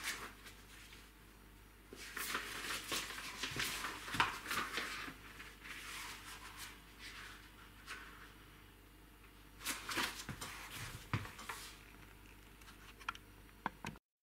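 Intermittent rustling and scraping of things being handled, in two spells, with a few sharp clicks near the end.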